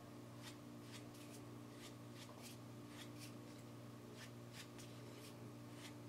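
Hand working over a kolrosed wooden spoon: faint, quick dry rubbing strokes, two or three a second, over a low steady hum.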